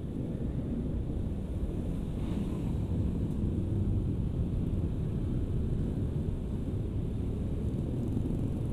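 Wind rumbling steadily over the microphone of a camera on a moving motor scooter, with the ride's road and engine noise underneath.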